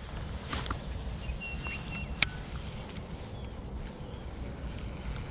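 Outdoor ambience on the water: a steady low rumble, two sharp clicks about a second and a half apart, and a faint thin whistle between them.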